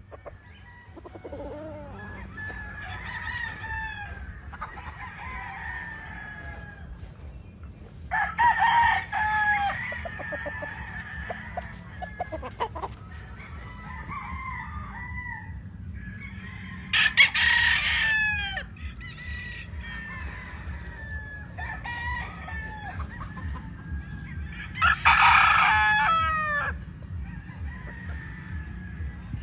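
Many roosters crowing back and forth, most of them at a distance. Three loud, close crows come about eight, seventeen and twenty-five seconds in, over a steady low rumble.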